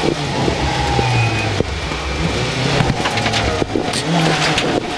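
Rally car's engine running hard at stage pace, its note stepping up and down with gear changes, with a few sharp knocks from under the car on gravel.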